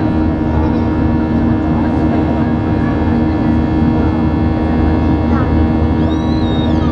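Steady roar of a Boeing 737-800's CFM56-7B turbofan engines at climb power, heard inside the cabin: a dense rush of air noise over steady low hum tones. Near the end a brief thin high tone rises and falls.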